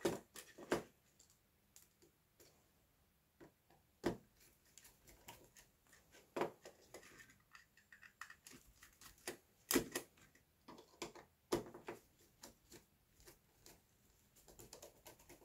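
Scattered small clicks, taps and scrapes of a screwdriver working the screw terminals of solid-state relays, with the relays being handled; the sharpest clicks come about 4 and 10 seconds in.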